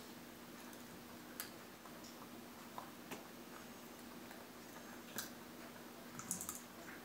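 A small dog crunching a walnut shell with its teeth: a few sharp, irregular cracks spread out, then a quick cluster of them near the end, over a faint steady hum.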